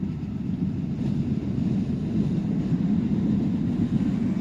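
Jet airliner taking off, a steady low engine rumble that swells slightly.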